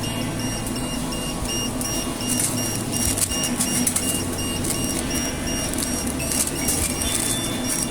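Self-serve soft-serve ice cream machine running with a steady mechanical hum, with background music alongside.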